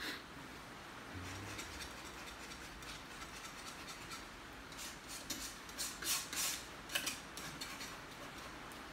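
Paint being worked onto a canvas panel: a run of short scratchy strokes, thickest about five to seven and a half seconds in, over quiet room tone.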